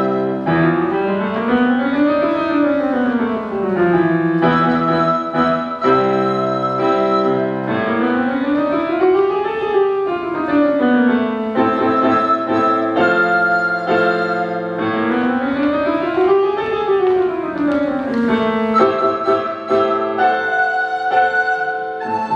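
Recorder ensemble playing an arrangement of classical music: held chords broken by three quick scale runs that climb and fall back.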